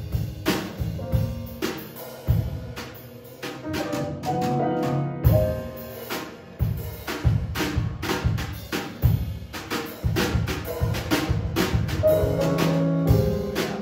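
Live jazz from a small combo: grand piano, electric bass and a Yamaha drum kit playing together, with busy drum hits throughout.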